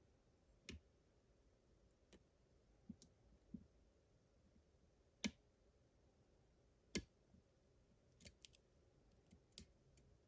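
Faint, scattered clicks of a lock pick working the pins of a pin-tumbler lock under tension, with two sharper clicks about 5 and 7 seconds in.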